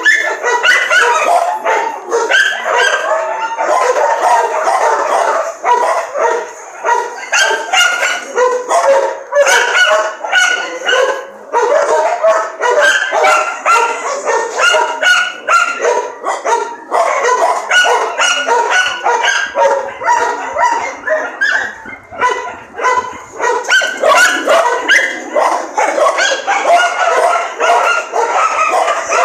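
A pack of dogs barking and yipping, many voices overlapping almost without pause.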